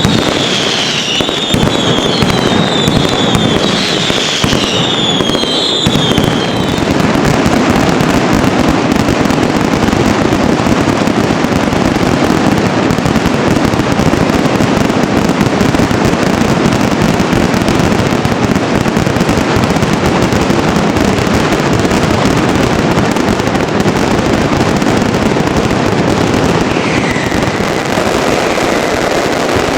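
Fireworks display: several whistling fireworks give repeated falling whistles over the first six seconds or so. Behind and after them comes a dense, unbroken barrage of crackling bursts that runs on without let-up.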